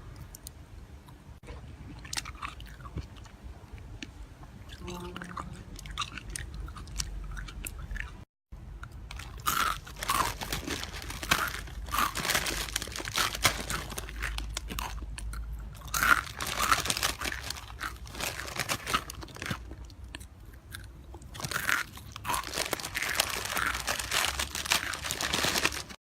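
Close-miked chewing and biting of crunchy food, with crisp crunches. It is quieter and sparser for about the first eight seconds. After a brief cut it turns to loud, dense crunching in bursts.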